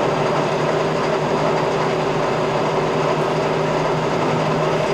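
Warner & Swasey 2A saddle-type turret lathe running under power, its geared headstock and spindle turning at a steady speed with an even mechanical hum.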